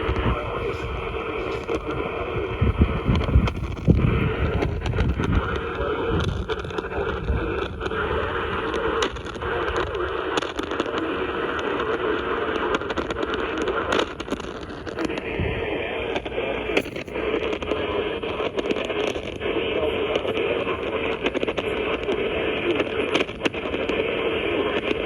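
Radio static from a receiver: a steady hiss with a constant hum-like band running through it, broken by frequent crackles and pops. Low rumbling is mixed in during the first few seconds.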